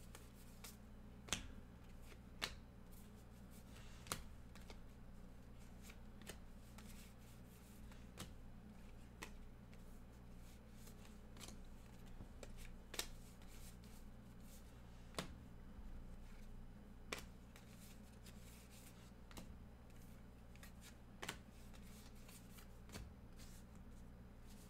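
Baseball trading cards being flipped one at a time through a stack in the hands: faint sliding with a sharp card snap every second or two, over a low steady hum.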